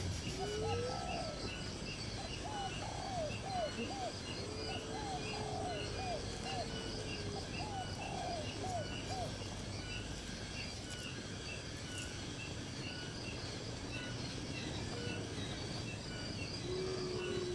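Birds calling: runs of short, quickly repeated arched calls in the first half, and a longer held call near the middle. Under them runs a steady high chirping of insects.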